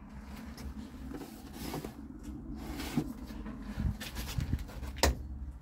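Scattered light knocks and rustling over a low steady rumble, with one sharp click about five seconds in, the loudest sound.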